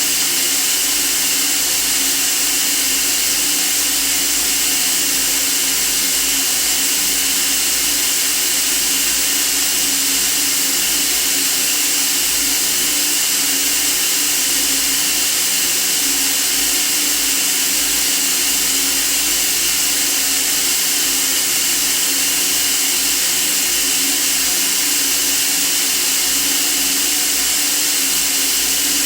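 Steady white noise: an unbroken, even hiss, strongest in the high range, with a faint low hum beneath it.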